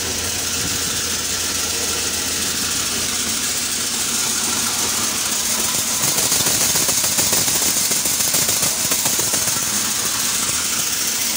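Tractor-driven Vishwakarma thresher running steadily while threshing chickpeas: a dense whirring hiss from the drum and fan over the low hum of the tractor engine that drives it. It grows louder about five to six seconds in.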